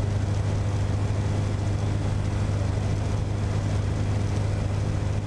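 C42 microlight's engine and propeller running steadily in cruise flight with wind rush, a constant deep drone heard from inside the cockpit.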